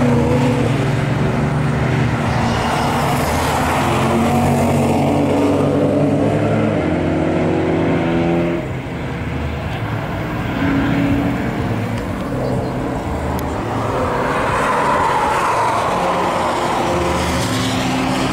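Road cars driving past one after another on a race track. A close group goes by first, their engine notes rising as they accelerate. A second, rising engine swell comes from the next car later on.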